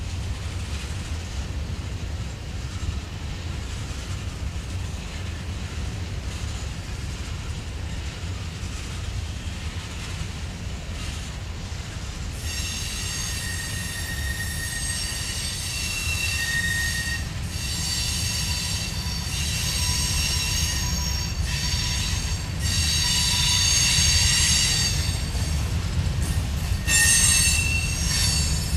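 Cars of a mixed freight train rolling past with a steady low rumble. From about halfway, the wheels squeal on the curve in high-pitched tones that come and go, growing louder toward the end.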